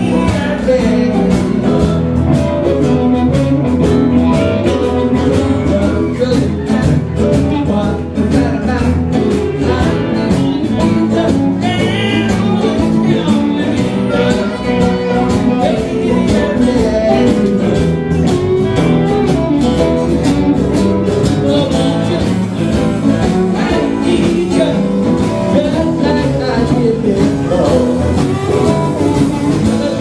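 A live blues band playing, with electric and acoustic guitars, harmonica and a male singer.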